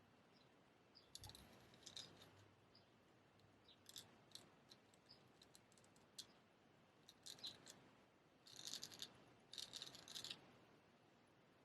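Straight razor scraping through beard stubble in short strokes: faint, scratchy rasps coming in several small clusters, with pauses between them.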